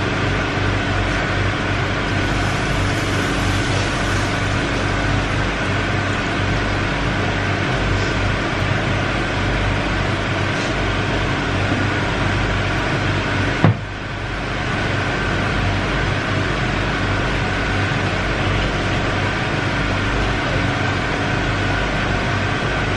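A steady mechanical drone with a low rumble and a constant hum, unbroken except for a single knock about fourteen seconds in.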